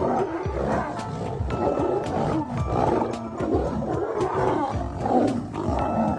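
Lions calling: a run of rough, noisy calls, one after another about a second apart.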